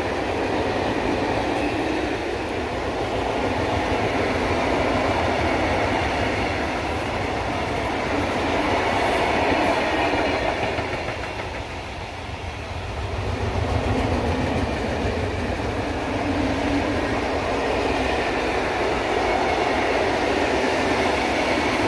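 A long freight train of open-top coal wagons rolling past, its steel wheels running on the rails in a steady rumble that dips briefly about halfway through.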